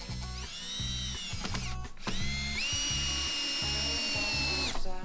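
Handheld power drill at work on a metal farm gate, running in two bursts: a short one that speeds up and winds down, then a longer run that steps up in pitch partway in, holds steady, and stops near the end.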